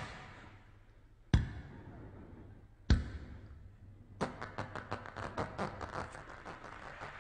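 Two sharp knocks about a second and a half apart, then a run of fast, uneven tapping.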